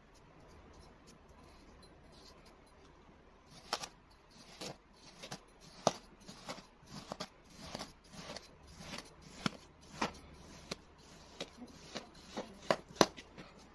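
Steel knife blade slicing through a packed block of kinetic sand: faint soft crunching at first, then from about a third of the way in a run of crisp crunches and clicks, roughly one or two a second, as the blade cuts down through the sand and meets the table.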